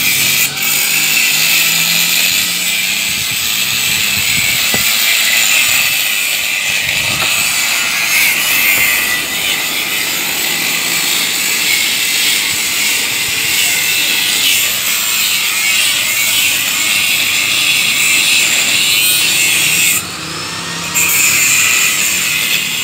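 Angle grinder disc grinding against steel tube, a loud, steady high-pitched screech; the disc lifts off the metal for about a second near the end, then bites again.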